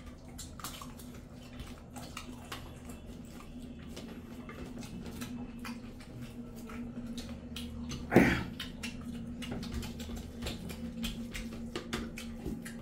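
Close-up eating sounds of two people eating rice and mutton curry by hand: fingers mixing food on steel plates and mouths chewing, a dense run of small clicks and smacks over a steady low hum. One louder short sound stands out about eight seconds in.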